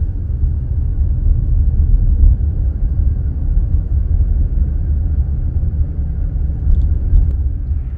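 Low, uneven rumble of a car rolling slowly along a paved road, heard from inside the car, flickering constantly. It drops away sharply right at the end.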